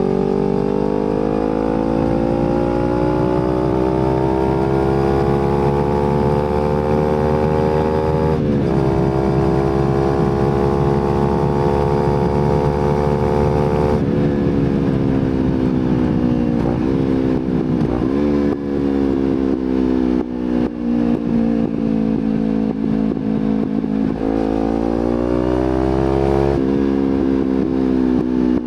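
Kawasaki Z250 engine breathing through an aftermarket slip-on exhaust while riding. It accelerates with the pitch rising and drops at an upshift about a third of the way in. Around halfway the throttle closes and the revs fall with irregular crackles and pops on the overrun. It then pulls up again, with another upshift near the end.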